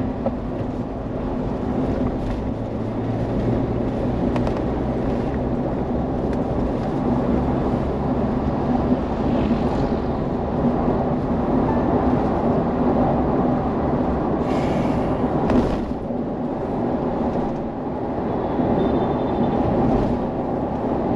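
Steady drone of road and engine noise inside the closed cabin of a moving Mahindra Thar, with a couple of brief knocks about fifteen seconds in.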